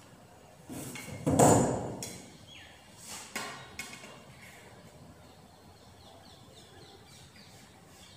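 A knock as a ruler is set against the chalkboard about a second in, followed by a few sharp taps of chalk on the board as a dotted line is marked along the ruler. Faint high chirps near the end.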